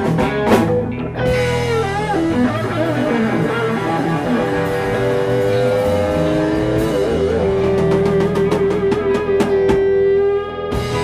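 Live rock band playing electric guitars, bass guitar and drum kit, with a lead guitar holding long, wavering notes over a steady bass line. The drum hits come thicker toward the end.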